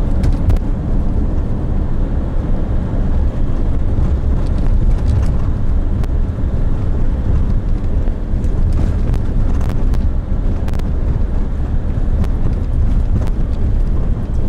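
Steady low rumble of wind buffeting the microphone while it travels along the road, with a few faint clicks.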